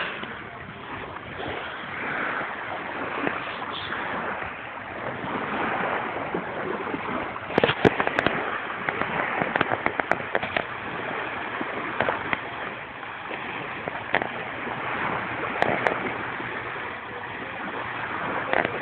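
Steady wash of sea surf on a beach. A run of sharp clicks and crackles comes from about seven to ten seconds in, and a few more near sixteen seconds.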